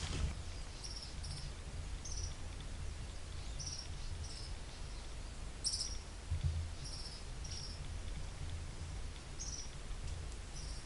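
Swamp wildlife ambience: short, high chirps repeating irregularly, about one or two a second, over a steady low rumble.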